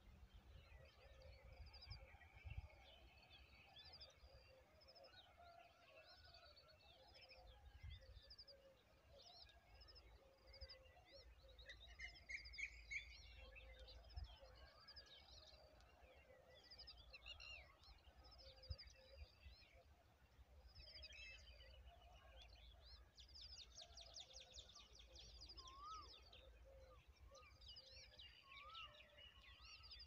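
Faint chorus of wild birds chirping and trilling, many short calls overlapping, with a denser trill a little past the middle and a few short rising whistles near the end, over a low rumble.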